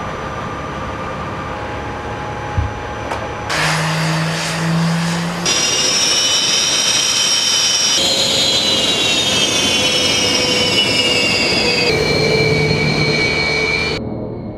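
Jet engines of a Flanker fighter on an airfield: a steady rushing hiss, then a high whine of several tones that slides slowly down in pitch. The sound changes abruptly several times.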